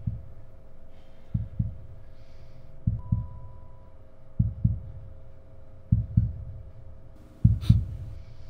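Heartbeat sound effect: slow, heavy double thumps, lub-dub, about every second and a half, over a steady faint hum.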